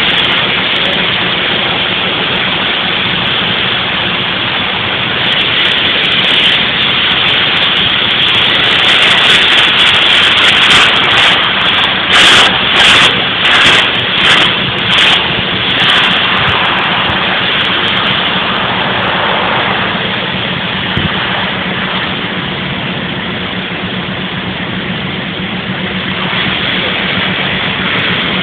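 Heavy machinery running steadily with a constant low hum and a dense rushing noise. About halfway through it comes in five louder pulses, each well under a second long.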